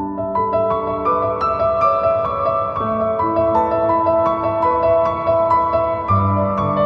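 Background music: a gentle piano melody over sustained chords.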